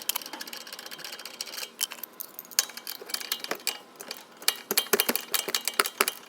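Hand tools clicking and clinking on metal as a new stabilizer link is fitted to the car's suspension, in irregular sharp ticks that come thicker and louder in the second half.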